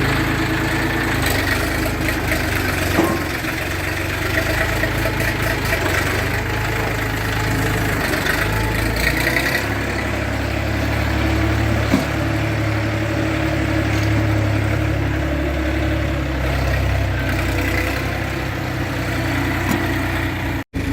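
Engine idling steadily, its low note shifting slightly about ten seconds in, with a single sharp knock near the middle.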